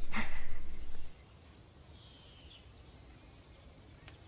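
Faint background ambience with a single short, falling chirp about two seconds in, after a brief louder low sound that fills the first second.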